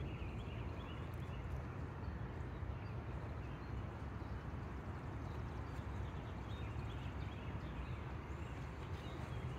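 Quiet outdoor ambience: a steady low rumble with a few faint bird chirps, most noticeable just after the start and again near the end.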